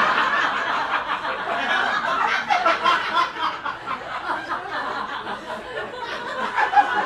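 Live theatre audience laughing, loudest at the start and tapering off.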